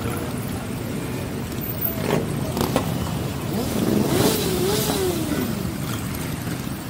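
Motorcycle engines of a group ride running steadily, with a few short sharp pops a couple of seconds in and one engine revving up and back down around the middle.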